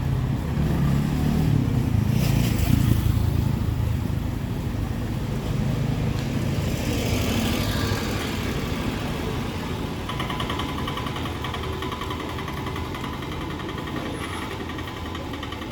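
Town street traffic: a motor vehicle passes close by, its engine rumble loudest about two to three seconds in and then fading. A rapidly pulsing pitched tone starts about ten seconds in and keeps going.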